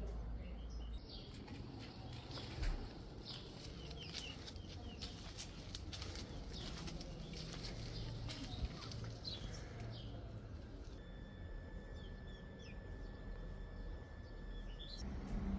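Small birds chirping repeatedly over a steady low outdoor rumble, with a steady high tone near the end.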